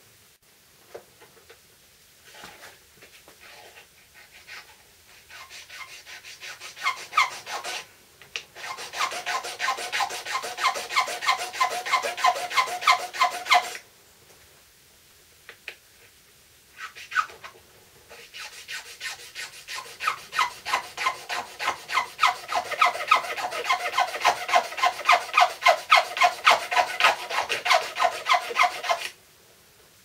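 Small hand file rasping on the red plastic switch slider of a Bosch multi-tool in quick, even back-and-forth strokes. It comes in two spells with a pause of a few seconds between them. The slider is being filed down so the switch can travel further forward.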